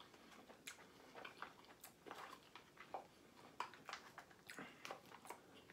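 Faint, irregular wet clicks and smacks of someone chewing pasta with the mouth close to the microphone.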